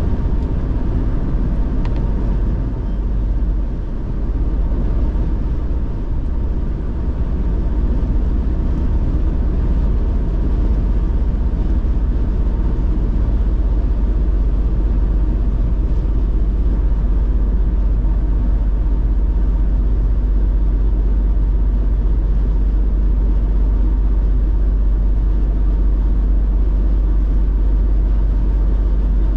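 Car driving at a steady speed: an even, deep rumble of road and engine noise that holds steady throughout.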